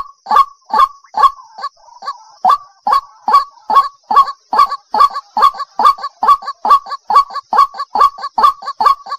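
White-breasted waterhen (ruak-ruak) giving a fast series of short repeated calls, about three a second, with a brief pause about two seconds in. It is the female's call that draws males.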